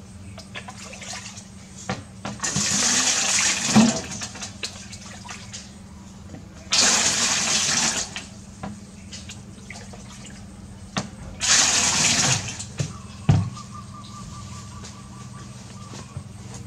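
Water poured from a plastic bowl into a large aluminium basin three times, each pour splashing for one to a second and a half. A steady low hum runs underneath.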